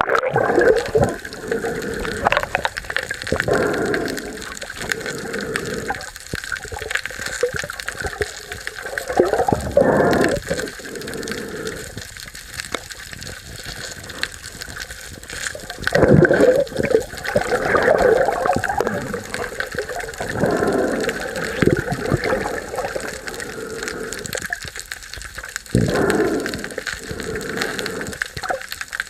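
Seawater rushing and gurgling in irregular surges a few seconds apart.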